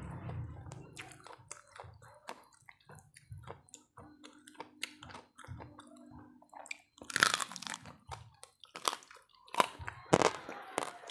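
A person chewing crunchy food close to the microphone, a steady run of small crunches and crackles, with several louder crunching bites in the second half.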